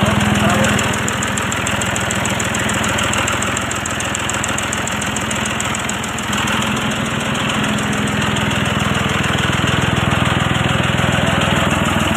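John Deere 5055E tractor's three-cylinder diesel engine idling steadily.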